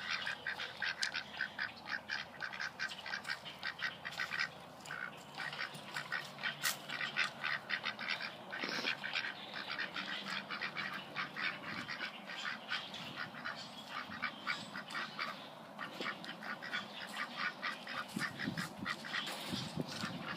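Ducks quacking continuously: many short calls overlapping, several a second.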